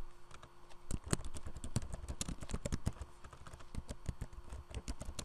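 Typing on a computer keyboard: quick, irregular keystrokes with a short pause about half a second in, thinning out and getting quieter in the second half.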